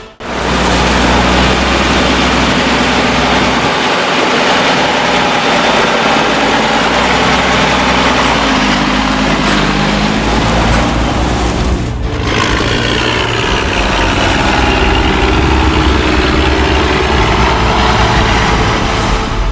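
MB Trac 1300 Turbo's six-cylinder turbo diesel engine running at work, its pitch rising and falling with changing revs. The sound breaks off briefly about twelve seconds in and then carries on.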